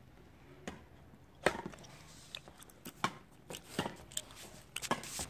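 Badminton rackets hitting a shuttlecock during a rally: a string of sharp, separate hits, the loudest about a second and a half in.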